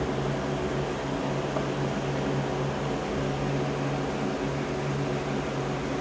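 Steady mechanical hum: a low drone over an even hiss, with no change in level.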